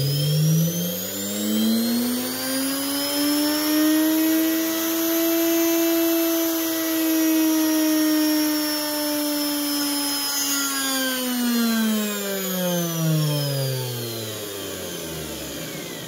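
Universal motor from an automatic washing machine, running unloaded on a triac speed controller: its whine climbs in pitch over the first few seconds as the speed is turned up, holds high, then falls away as it is slowed. Near the end it is braked to a stop by a tool pressed against its pulley, since it would otherwise take about a minute to spin down.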